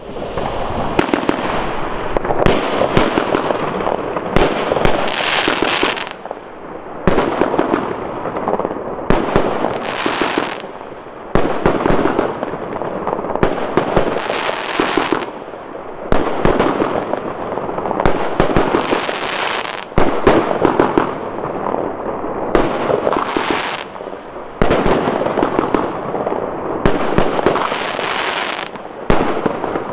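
Lesli "Dark Water" firework compound firing: a rapid run of shots and dense crackling that comes in fresh waves every couple of seconds.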